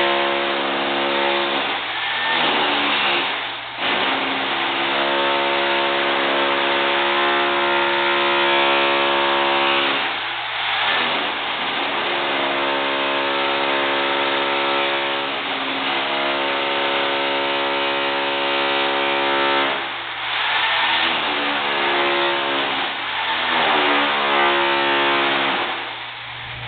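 Bosch hammer drill with a flat chisel chipping out concrete along a floor crack: a steady, rapid, pitched hammering that pauses briefly about six times and winds back up in pitch each time it restarts.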